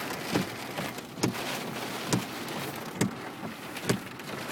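Steady rush of storm rain and wind, with a sharp knock about once a second, five in all, as something bangs repeatedly.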